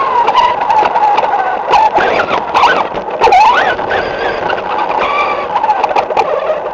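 RC car's motor running at speed, its pitch rising and falling as the throttle changes, over tyre and road noise with scattered clicks and knocks from the chassis bouncing over the asphalt, heard from a camera mounted on the car.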